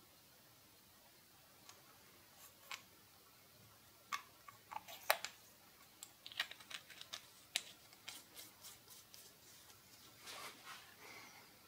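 Faint small metal clicks and scrapes from handling a pen-shaped LED torch, its threaded tail cap being fitted and screwed back onto the body. There is a scattered run of light ticks from about four seconds in, then a softer rustle near the end.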